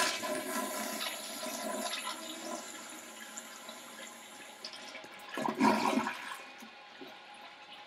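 Toilet flushing: a rush of water that fades over a few seconds, with a second surge about five and a half seconds in, then a quieter steady flow.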